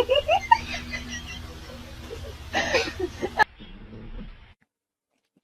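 Human voices in short bursts, then an abrupt cut to silence about four and a half seconds in.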